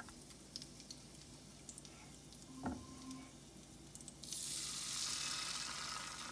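Hot canola oil in a steel pan crackling faintly, with one knock partway through. A little past four seconds in, teler pitha batter poured into the oil sets off a loud, steady sizzle.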